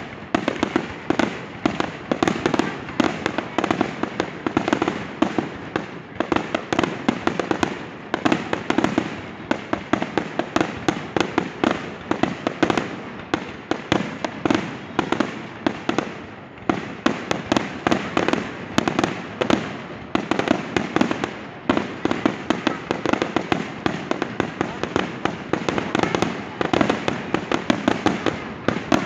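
Fireworks display: a dense, continuous barrage of bangs and crackles, many per second, with a few brief lulls.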